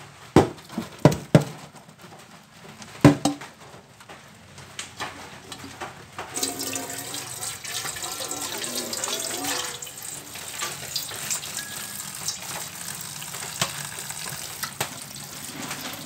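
A few sharp knocks against a stainless steel sink. About six seconds in, a steady rush of water starts: boiled papaya flowers and their hot cooking water being poured from a steel pot into a plastic colander in the sink to drain.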